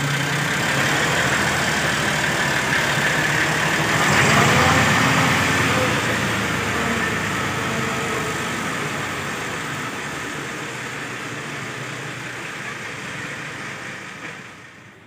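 Massey Ferguson tractor's diesel engine as it is driven away, loudest about four seconds in as it passes close, then fading steadily as it drives off.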